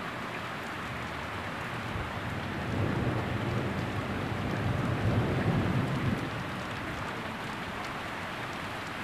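Heavy thunderstorm rain falling steadily, with a low rumble of thunder swelling up about two and a half seconds in and fading away by about six seconds in.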